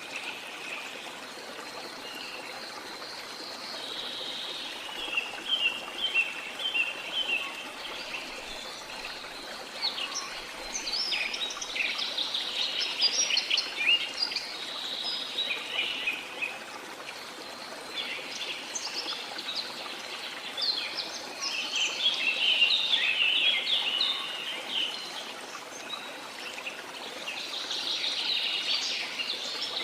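Rainforest birds chirping and singing in many overlapping calls over the steady rush of a waterfall. The birdsong swells twice, about a third of the way in and again past the middle.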